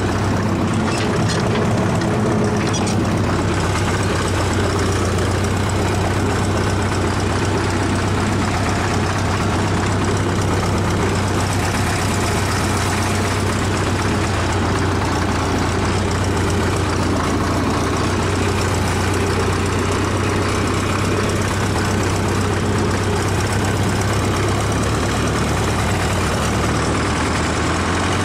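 Ursus tractor's diesel engine running at a steady speed while driving, heard close up from the driver's seat.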